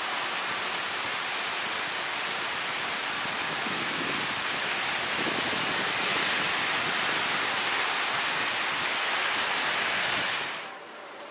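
Heavy rain pouring down, a steady dense hiss that drops away about ten seconds in.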